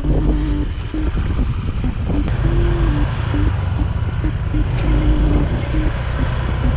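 Steady low rumble of a moving vehicle, engine and ride noise, heard while riding along.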